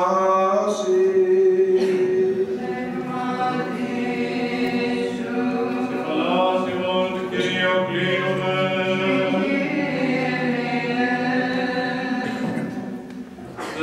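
Byzantine chant of a Greek Orthodox service: unaccompanied voices singing a slow, gliding melody over a steady held low note (the ison). It fades briefly near the end.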